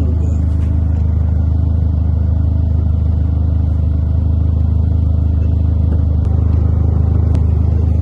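Car engine idling steadily at a constant speed, heard up close, with no revving.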